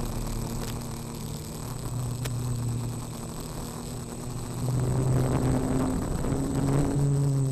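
Onboard audio of a quadcopter's four brushless outrunner motors (Turnigy SK3 2822) spinning 8x4.5 propellers: a steady buzzing hum that gets louder and steps up in pitch about five seconds in as the throttle rises. A thin, steady high whine runs under it.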